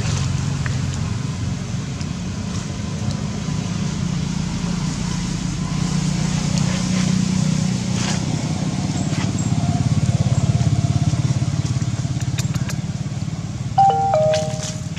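Steady low rumble of a motor engine running nearby, like an idling motorcycle. Near the end, a brief high-pitched call with a couple of stepped tones sounds over it.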